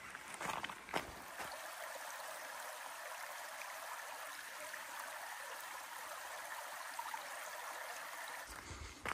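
A small stream running, a steady rush of water. Footsteps at the start and again near the end.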